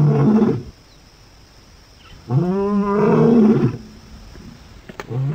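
Lion roaring: a call dies away in the first half second, a long call comes about two and a half seconds in, and another call starts near the end.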